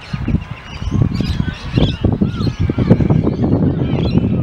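Birds chirping and calling repeatedly over a loud, uneven low rumble.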